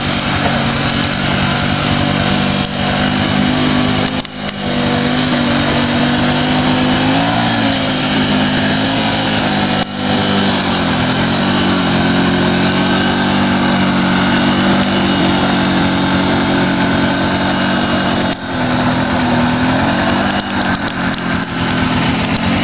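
Can-Am ATV engine running hard as it churns through mud and standing water, its pitch rising and falling with the throttle. The sound drops briefly three times, about four, ten and eighteen seconds in.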